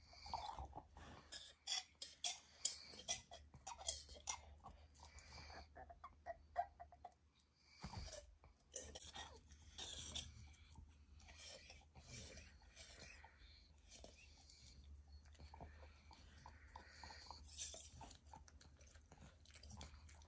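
A pit bull chewing on her toy ball: irregular wet crunches and clicks of teeth on the ball, coming in clusters with short pauses. A faint steady low hum runs underneath.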